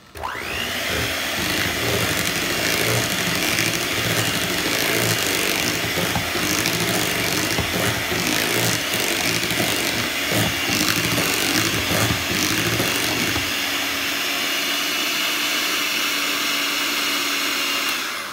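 Electric hand mixer running with its beaters churning sweet potato pie filling in a bowl. The motor whine rises as it spins up at the start, holds steady, and cuts off near the end.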